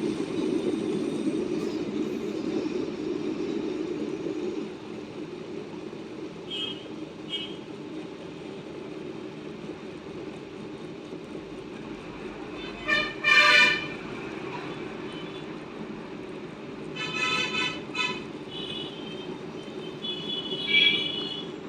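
Small stone wet grinder running steadily, grinding soaked rice and urad dal into dosa batter. Vehicle horns honk several times over it, loudest about two-thirds of the way through.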